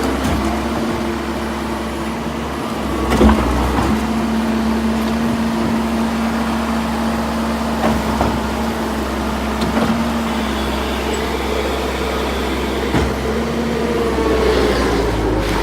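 2011 C190 tracked skid steer's diesel engine running steadily, with a few metallic clanks, the loudest about three seconds in. The engine pitch shifts near the end.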